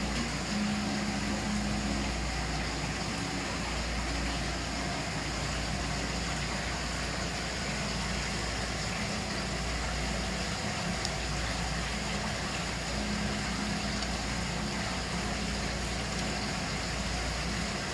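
Steady background hiss with a low hum and rumble, even throughout.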